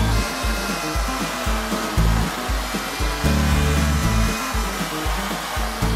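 Corded electric chainsaw running steadily as it cuts along a thick timber beam, under background music with a bass beat about twice a second.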